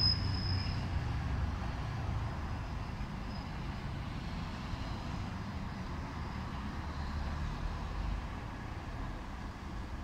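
City street traffic: passing cars give a steady low engine and tyre rumble. A brief thin, high squeal sounds near the start, as the noise is loudest.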